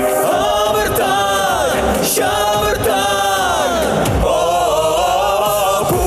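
Pop song sung by male voices in harmony over a backing track, each phrase ending in a downward slide in pitch.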